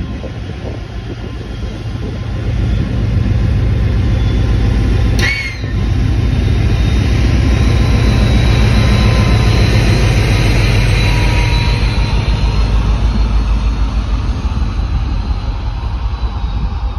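Class 56 diesel locomotive 56094, with its Ruston Paxman V16 engine, running as it approaches and passes close by, loudest as the locomotive draws level. Its train of loaded flat wagons follows with a steady rumble of wheels on rail. There is a brief sharp click about five seconds in.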